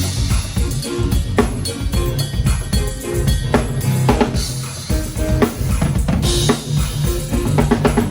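Band music with a full drum kit: steady bass-drum and snare hits over a moving bass line and guitar, with cymbal crashes about every two seconds.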